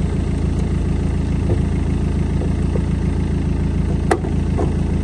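BMW 320Cd's four-cylinder diesel engine idling steadily, with a sharp knock about four seconds in.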